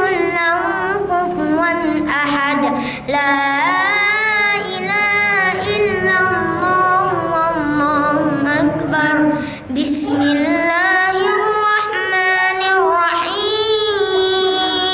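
A boy reciting the Qur'an in melodic tilawah style, his high child's voice holding long, ornamented notes that bend up and down, with short breaths between phrases about three and ten seconds in.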